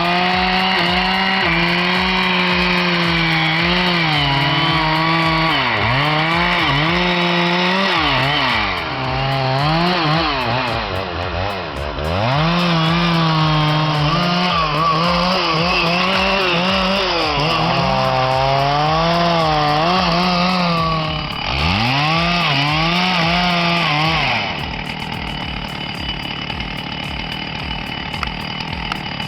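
Stihl MS650 91cc two-stroke chainsaw running at high revs while cutting wood, its pitch sagging and recovering again and again as the chain bites. About 24 seconds in it drops to a quieter, rougher sound with no clear pitch.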